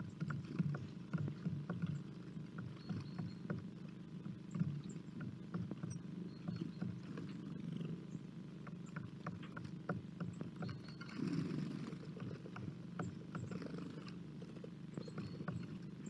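Squirrel foraging at a feeder: irregular small clicks, scratches and nibbling as it handles seed and claws at the wood, over a steady low hum, with a brief louder rustle a little after the middle.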